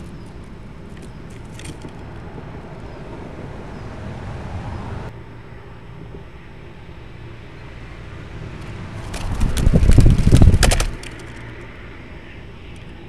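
A young mourning dove's wings beating rapidly close to the microphone for about two seconds, as it flutters up onto its nest perch. Under it runs a steady background hum like distant traffic.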